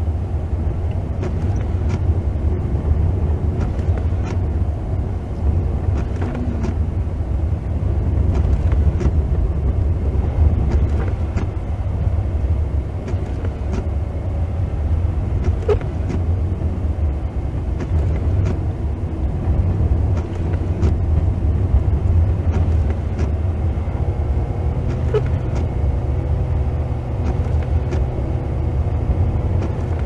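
A car driving slowly on a snow-covered road, heard from inside the cabin: a steady low rumble of engine and tyres, with scattered light clicks. A faint steady hum joins near the end.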